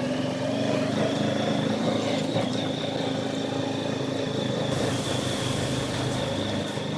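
ATV engine running steadily while riding, with a thin, steady high whine over it.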